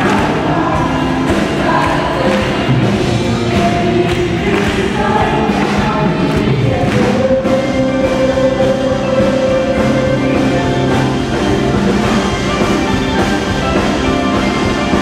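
Christian worship music with a group of voices singing over a steady beat.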